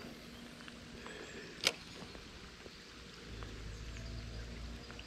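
Faint outdoor ambience with a single sharp click about one and a half seconds in, then a low rumble setting in a little past the middle.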